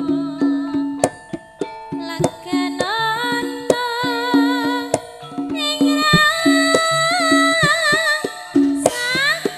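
Javanese gamelan music for tayub dancing, amplified over a sound system: sharp kendang drum strokes and a repeating struck pulse under a female sinden singing a held, wavering melody. Near the end her voice slides upward.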